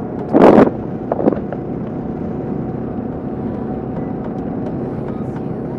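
Kawasaki KLR 650 single-cylinder engine running steadily at highway speed, mixed with wind rush. A short loud burst about half a second in, and a smaller one just after a second.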